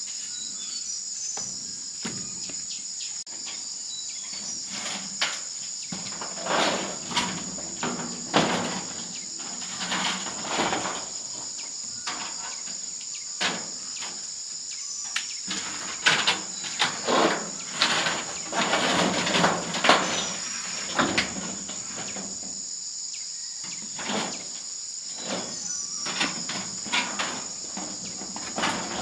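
A steady, high-pitched chirring of insects runs throughout. Over it come scattered knocks, clatters and short scraping noises, clustered in two busy stretches: about six to eleven seconds in, and again from about sixteen to twenty-one seconds in.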